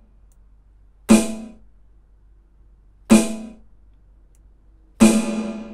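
Aroma TDX-25 electronic drum kit's snare sound struck three times, about two seconds apart, each hit ringing out and fading. The snare's reverb level is switched between full (127) and off (0) between hits to compare the effect.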